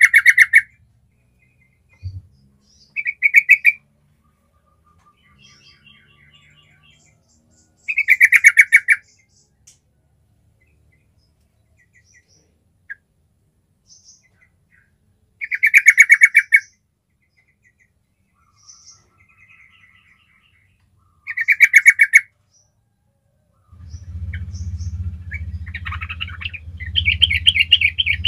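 Yellow-vented bulbul calling: five loud, quick rattling phrases a few seconds apart, with faint chirps between them. Near the end a steady low hum sets in under a run of busier chirping.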